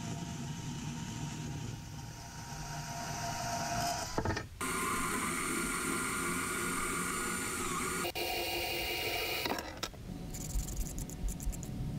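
Cordless threaded-rod cutter running as it shears 3/8-inch threaded rod: a steady motor whir that stops abruptly a few times. Near the end come light metallic clicks and rattles.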